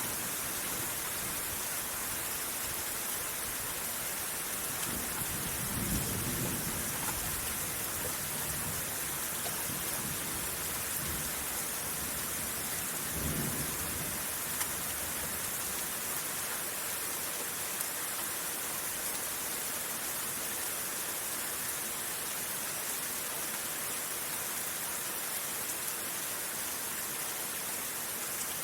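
Steady rain hissing during a thunderstorm, with low rolls of thunder rumbling about six seconds in and again about thirteen seconds in.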